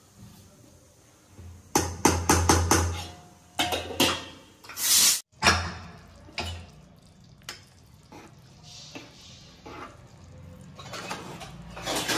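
A metal spoon knocking and scraping against a stainless steel plate while serving cooked rice, with a quick run of sharp knocks about two seconds in. Later a ladle scrapes and stirs inside an aluminium pressure cooker of rajma.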